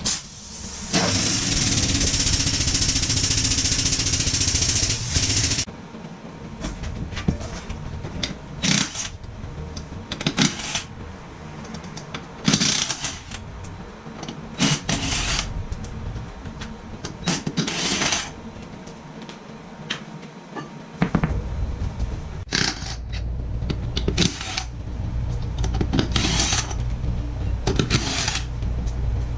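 A few seconds of steady, loud air hissing, then a string of short mechanical rattling bursts about every one to two seconds over a low steady hum, typical of an air tool at work on a mower wheel.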